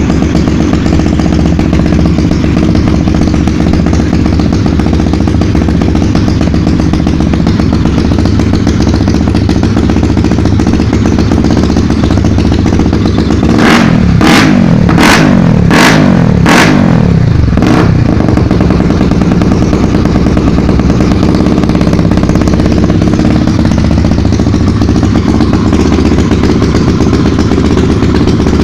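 Honda Tornado single-cylinder motorcycle engine idling loudly, then revved hard several times in quick succession about halfway through, with sharp cracks as it hits the rev limiter and pops from the exhaust, before settling back to idle.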